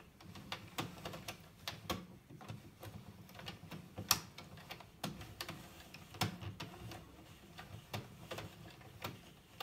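Addi Express 22-needle circular knitting machine clicking irregularly as its hand crank is turned a little at a time during cast-on: plastic needles and carriage ticking, a few clicks a second.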